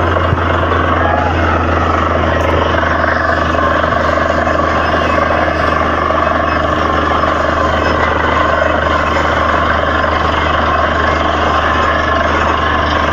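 Borewell drilling rig running steadily: a loud, unbroken machine noise with a strong low hum.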